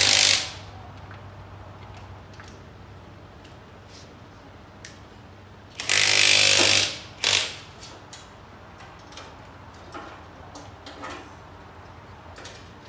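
Power tool, likely an impact wrench, run in short bursts on a wheel's lug nuts: one burst just ending at the start, another lasting about a second about six seconds in, and a brief blip right after it, with light clicks and clinks of metal in between.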